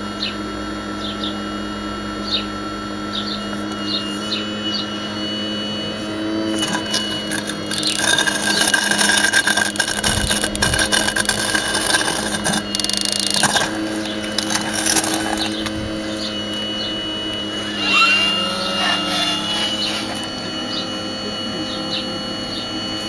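Radio-controlled Hitachi 870 model excavator running, its hydraulics humming steadily as the boom and bucket move. In the middle stretch a louder, rougher noise joins in as the bucket works the broken concrete.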